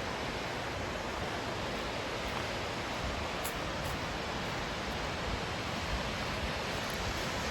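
Steady rush of flowing water, an even hiss and roar without breaks.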